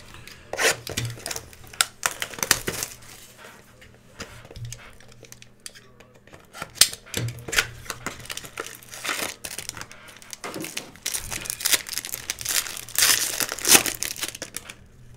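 Crinkling of a foil trading-card pack wrapper and hands handling cards, with the loudest, densest crinkling near the end as the foil pack is torn open.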